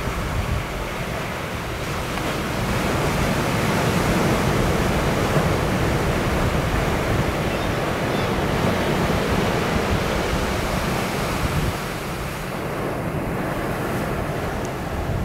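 Surf and wind, with wind buffeting the microphone: a steady rushing noise that swells a few seconds in and eases off near the end.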